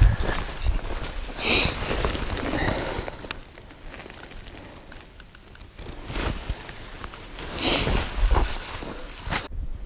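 Footsteps on dry desert ground with brush and clothing rustling as a person walks through scrub, with two louder rustles, one about a second and a half in and one near the end. The sound cuts off suddenly shortly before the end.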